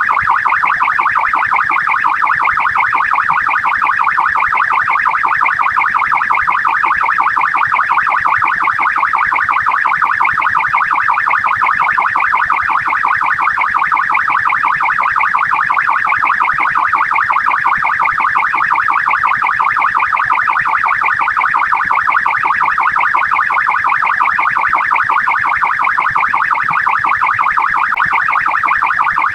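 Australian police car's electronic siren sounding continuously in a rapid, steady warble, the responding-mode siren of a police car on call.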